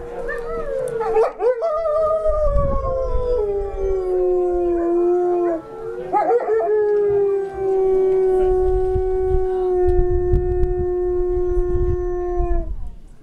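A wolf howling: two long howls, the first sliding slowly down in pitch, the second held on one steady note until it stops near the end.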